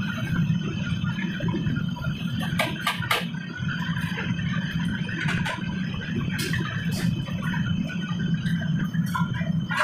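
Steady noise of a commercial wok burner with a tap running, broken by sharp metal clinks of a ladle on the wok and pans, a pair about three seconds in and several more later.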